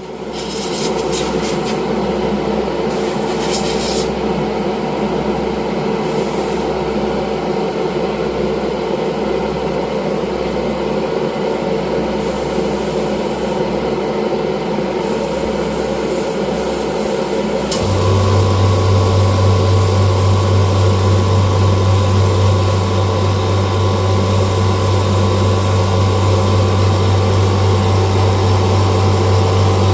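Small workshop machinery running steadily with a noisy hiss. A second, deeper motor hum starts a little past halfway and keeps going.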